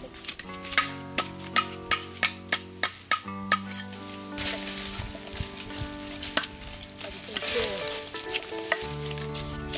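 A large cleaver-type knife scraping scales off a Probarbus labeamajor fish on a wooden block. For the first few seconds it makes sharp scraping strokes about every half second, then a steadier hissing scrape. Soft background music runs underneath.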